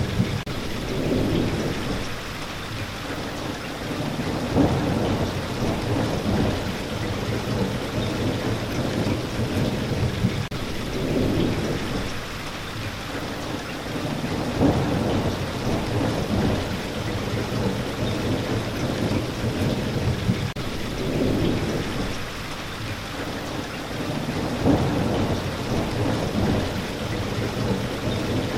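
Steady, even rain with low rumbles of thunder swelling and fading several times.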